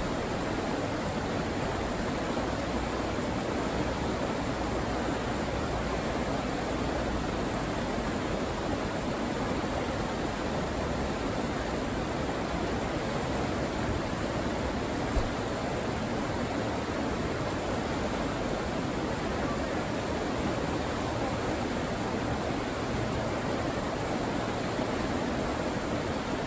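Fast river rapids rushing steadily over rocks, a constant even roar of whitewater. One brief faint click about halfway through.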